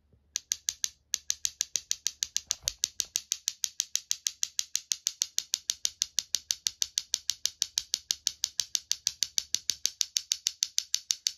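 Wooden Eggheads clacker toy shaken by its handle, its hinged mouth clacking open and shut in a fast, even run of about six clicks a second.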